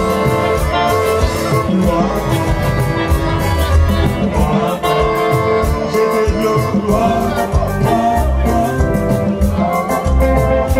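Live Latin-style music: electric guitar playing over a steady drum beat and bass, with a voice singing at times.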